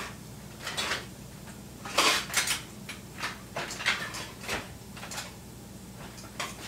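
Kitchen utensils clattering as someone rummages through a kitchen drawer for a meat chopper: scattered clinks and knocks, loudest about two seconds in, with more in the second half.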